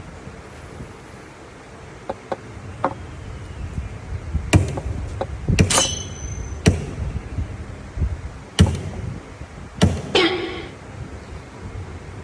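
A series of sharp knocks and bangs at irregular intervals, heavier from about halfway through, with a brief squeak near the end.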